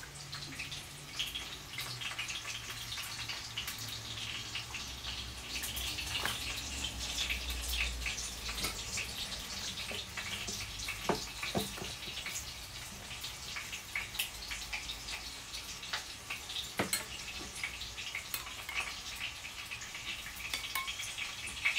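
Broth dripping and splashing as pieces of flatbread are dipped in a pot and spooned over the bread, with a few light spoon clicks against the bowl.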